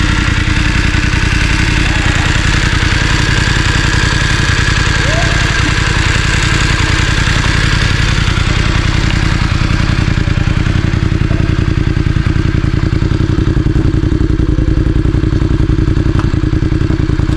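Voge DS900X motorcycle's parallel-twin engine running steadily.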